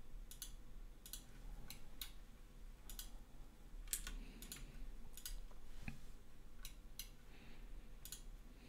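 Faint, irregular clicks of a computer mouse and keyboard, about a dozen, some in quick pairs, with a soft low knock near six seconds.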